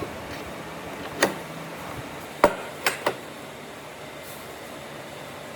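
Four sharp knocks of hard objects striking, over a steady background noise: one about a second in, one at about two and a half seconds, then two quick ones close together.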